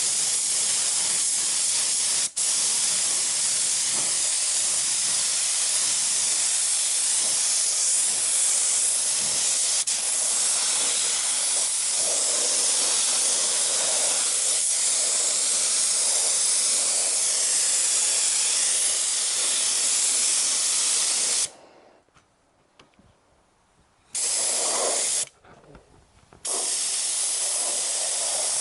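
Air-powered paint spray gun hissing steadily as it sprays high-build 2K primer. The trigger is released about three quarters of the way through, then there is one short spray and a stop before spraying resumes near the end.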